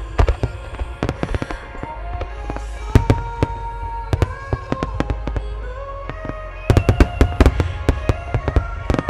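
Aerial firework shells bursting in rapid succession, many sharp bangs and crackles, with the heaviest barrage near the end, over music with long held melody notes.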